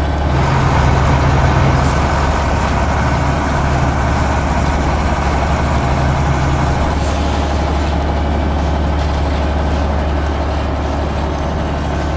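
Heavy truck engine running steadily with a deep hum, and a slightly higher hum that comes and goes during the first several seconds.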